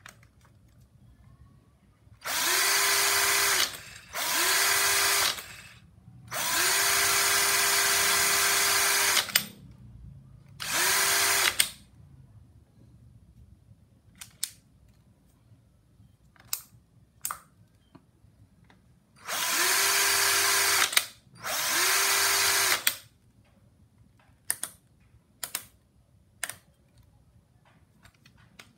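Cordless drill motor run free in six short bursts, each spinning up, holding a steady whine and winding down; the third run is the longest, about three seconds. Scattered light clicks follow in the second half.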